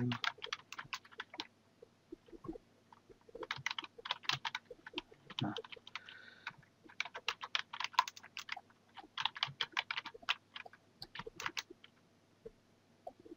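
Computer keyboard typing: several quick runs of keystrokes with short pauses between them.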